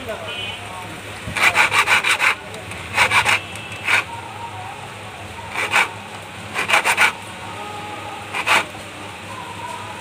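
Hand file rasping across a key blank in short groups of quick strokes with pauses between, filing away the marks that the lock's pins left on the blank to cut the notches of a new key for a Spark motorcycle handle lock.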